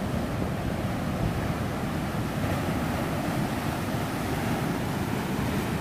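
Heavy ocean surf surging and foaming over sandstone rock ledges: a steady, rushing wash with no separate crashes.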